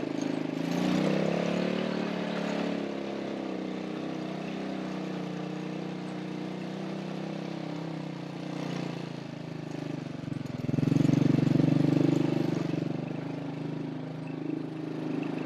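A vehicle engine running, rising in pitch about a second in and getting louder for a couple of seconds around eleven seconds in.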